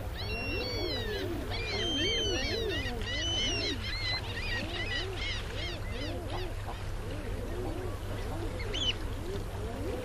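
A flock of waterfowl calling: many overlapping low, rising-and-falling honking calls throughout, with higher calls mixed in during the first half. A steady low hum runs underneath.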